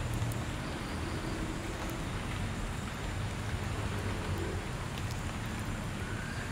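Steady outdoor background noise: a low rumble with a hiss over it and a few faint ticks, with no distinct event standing out.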